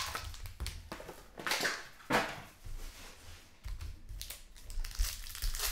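Foil trading-card pack wrappers and the cardboard box crinkling and rustling as packs are pulled out and handled, in a few irregular spells of crinkle with light taps, loudest about two seconds in.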